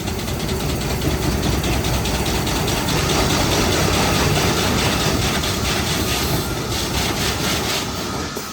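Log debarking machine running: a loud, steady rumble with rapid clattering.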